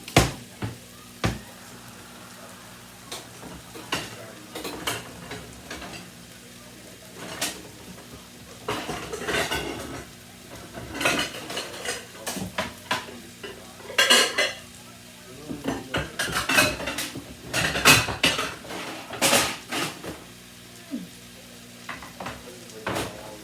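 A utensil scraping and clanking against cookware in irregular bursts as food is stirred and moved around, the busiest stretch in the second half.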